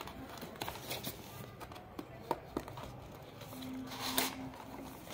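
Cardboard earphone retail box being handled and turned over in the hands: scattered light taps and clicks with soft rustling.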